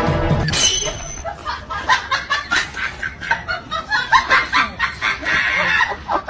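Domestic cat chattering at a window: a quick run of short chirping calls, several a second.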